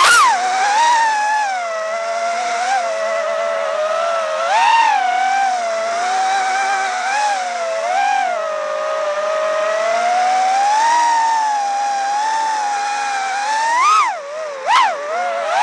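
Brushless motors and propellers of a 5-inch iFlight Nazgul5 FPV quadcopter whining in flight. The pitch rises and falls as the throttle changes, with a few quick throttle punches near the end.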